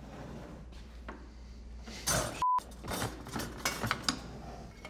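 Light clinking and scraping of the small metal pan being pushed through an Easy Bake Oven with its plastic pusher tool. About halfway through comes a short censor bleep.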